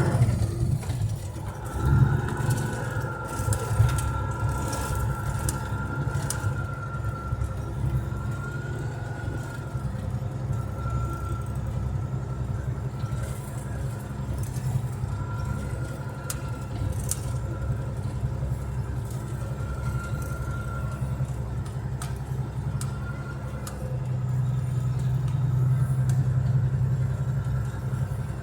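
Diesel engine of a Case IH 8120 combine heard from inside the cab, a steady low drone with a thin whine above it that comes and goes. The engine gets louder about 24 seconds in as it works to keep traction in mud.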